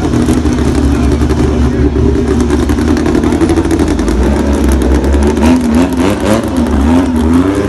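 A car engine running loud and steady close by, its pitch rising and falling a few times near the end as it is blipped.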